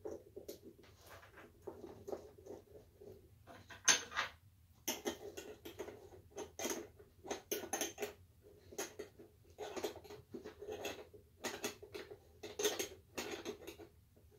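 Irregular clicking, scraping and light clatter of small metal parts and a hand tool being worked by hand during lamp-cord reassembly.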